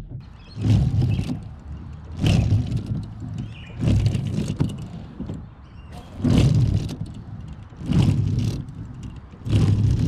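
Car windscreen wiper blades shuddering and chattering across the glass, one loud juddering burst on each pass, about every one and a half to two seconds. The wiper rubber grips the glass too much instead of gliding, so the blades vibrate as they wipe.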